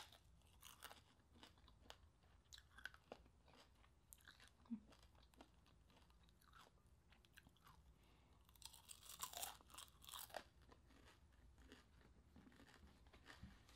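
Close-up crunching and chewing of deep-fried chicharon bulaklak (pork mesentery), scattered crisp crackles with a louder run of crunches about nine to ten seconds in.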